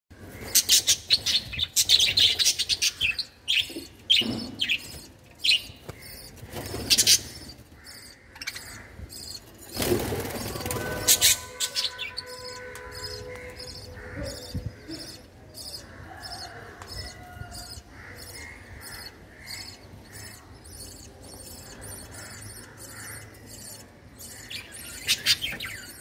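Budgerigars chattering in rapid, sharp chirps, loudest and densest over the first several seconds and then softer and more scattered, with another loud cluster near the end. A short rushing noise comes about ten seconds in.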